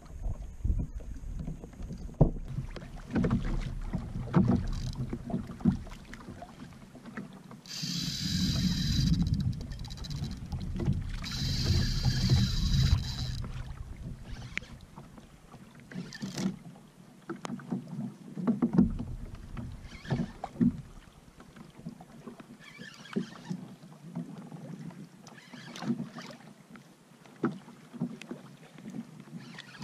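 Choppy sea slapping and knocking against a Hobie Pro Angler kayak's hull, with wind rumbling on the microphone, while a spinning reel is cranked against a hooked fish, which the angler takes for a big bonita. About a third of the way in, two buzzing runs of a couple of seconds each, the reel's drag paying out line as the fish pulls.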